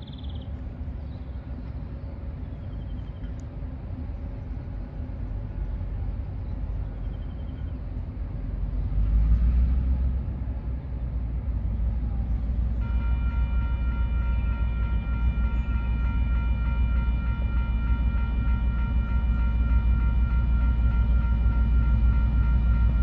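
TasRail 2010 class diesel locomotive hauling a cement train, approaching from a distance as a low rumble that grows slowly louder. A steady high ringing of several tones sets in about halfway through and carries on.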